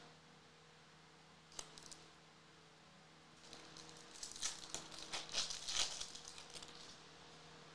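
Foil wrapper of a 2024 Topps Series 2 baseball card pack being torn open: a run of crinkling and tearing starts about three and a half seconds in and lasts some three seconds. A single light click comes about one and a half seconds in.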